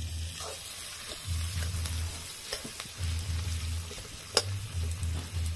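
Sliced onions sizzling in hot oil in an aluminium kadhai over a wood-fired chulha, stirred with a metal spatula that gives a few sharp scrapes and taps against the pan.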